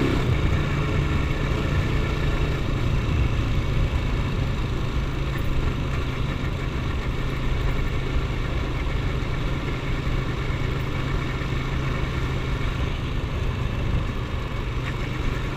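Motorcycle engine running steadily while the bike cruises along the road, heard from the rider's seat.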